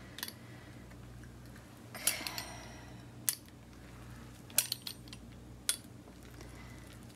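Metal pizza-cutter wheel rolling through a sheet of pastry dough on baking paper. A brief scraping rustle comes about two seconds in, and a few sharp light clicks of the metal cutter are scattered through.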